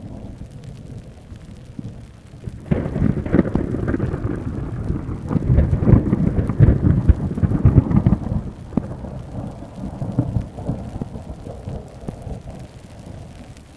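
Thunder in a rainstorm: a thunderclap breaks suddenly about three seconds in and rolls on as a long, crackling low rumble, loudest in the middle, then fades away over steady rain.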